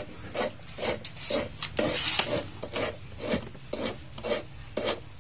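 An engine valve coated in grinding compound, gripped with pliers and twisted back and forth against its seat in the cylinder head of a Super Kama 12 HP diesel. It makes a gritty rasping about three strokes a second. This is hand-lapping the valve so that it seats and seals again.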